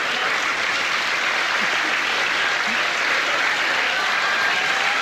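Theatre audience applauding, a steady, even clapping.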